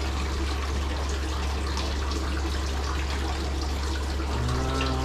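Steady trickle of water from an aquarium's filter over a constant low hum.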